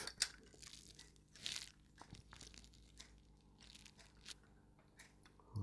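Faint, scattered clicks and rustles of styrene plastic model kit parts being handled and pressed together.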